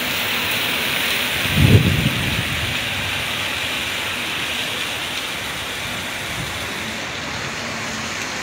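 Heavy tropical downpour hissing steadily on the street and pavement, with one short low rumble about two seconds in.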